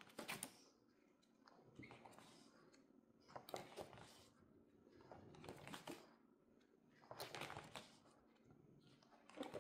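Cardstock sheets being turned over one at a time, each turn a faint, brief paper swish, about six turns spaced roughly every one and a half to two seconds.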